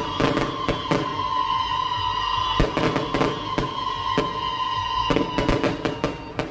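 Fireworks bursting in a rapid series of loud bangs and cracks, thickest in a cluster about three seconds in and again near the end, over a steady high hum.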